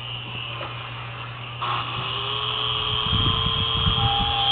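Small electric motors of mini indoor remote-control helicopters whining steadily; about a second and a half in, a louder whine starts as a helicopter's rotor spins up, its pitch rising slowly.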